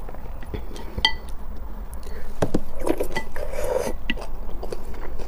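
Wooden chopsticks clinking and scraping against a glass bowl as noodles are stirred and lifted from the soup, with one ringing clink about a second in and a busier, noisier stretch in the middle.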